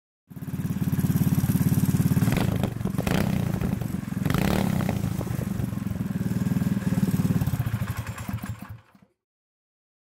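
Predator 212cc single-cylinder four-stroke engine of a Doodle Bug mini bike running with a performance header and muffler, a K&N-style air filter and a bigger carburetor jet fitted; it still runs after the upgrades. The level dips and picks back up a few seconds in, and the sound cuts off suddenly near the end.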